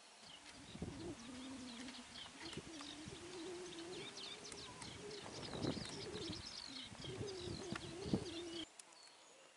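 Faint outdoor birdsong: many small birds chirping, with a low cooing call underneath. It cuts off suddenly near the end.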